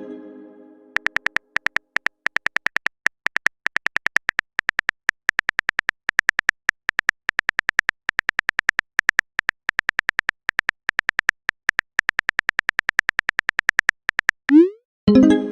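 Rapid run of short, high electronic blips, about five or six a second in groups with brief pauses, the kind of text-scrolling blip effect that plays as on-screen dialogue types out. Near the end a quick rising swoop leads into a plucked, ringing note, and a similar note fades out at the start.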